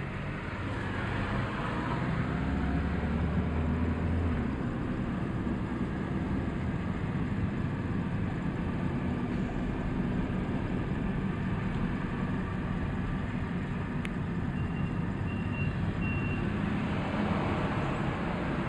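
Car driving, heard from inside the cabin: steady engine and road noise, growing louder over the first two seconds.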